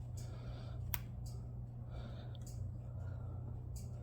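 A few light clicks, spaced about a second apart, from the gauge-cluster button of a 2004 Harley-Davidson Wide Glide being pressed to step through its stored fault codes in diagnostic mode, over a steady low hum.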